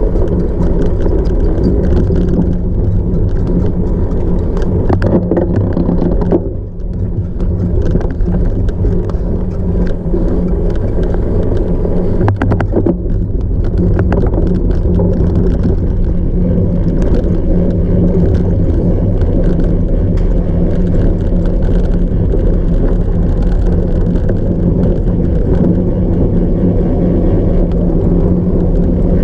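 Steady rushing and rattling of a cyclocross bike ridden over rough ground, with wind on the microphone. It dips briefly about six seconds in.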